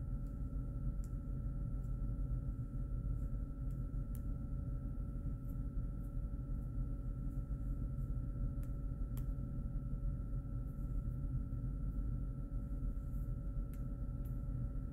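Steady background hum of room noise with two faint, constant whining tones, one higher than the other, and a few faint ticks scattered through it.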